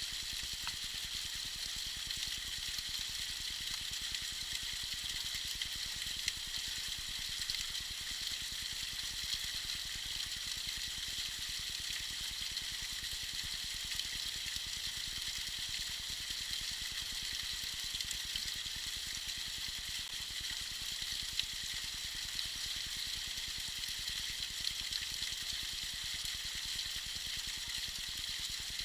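Small icy waterfall trickling and splashing steadily, a constant high hiss of falling water with occasional small drips and splashes standing out.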